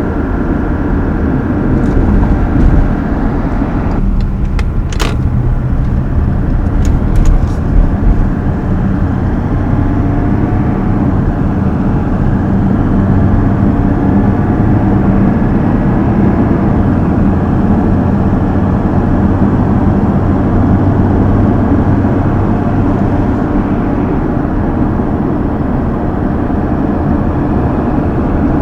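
Mazda CX-60's 3.3-litre inline-six diesel engine running steadily, with a few sharp clicks about five and seven seconds in.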